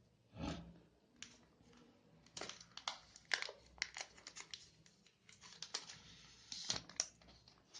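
Smartphone retail box and packaging being handled as the phone is taken out: a quick run of small clicks, taps and rustles.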